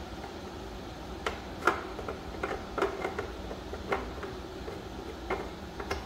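Plastic parts of a coffee grinder being fitted back together and turned toward the locked position: irregular light clicks and knocks, about seven or eight, over a steady low hum.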